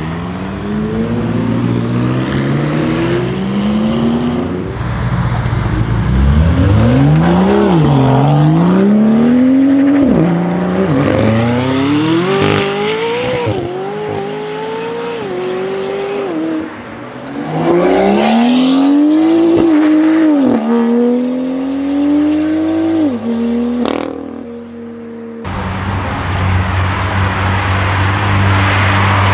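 McLaren 600LT's twin-turbo V8 accelerating hard in several runs, the engine note climbing and then dropping back at each upshift. Near the end comes a single sharp crack, then a steadier engine and tyre noise.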